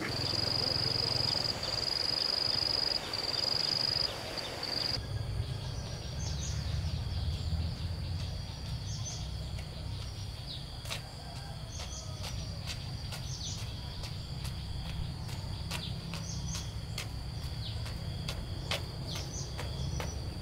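Countryside ambience. For the first five seconds an insect buzzes a strong, steady high note, broken into three long stretches. After a sudden change the buzz goes on faintly, with birds chirping and scattered sharp clicks over a low rumble.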